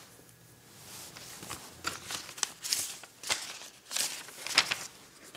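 Paper rustling and crinkling in irregular bursts as an old folded letter is handled and opened out.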